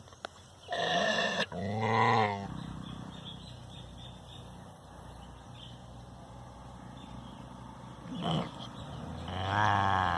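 A dog's deep growling barks at a mirror: two close together about a second in, then two more near the end.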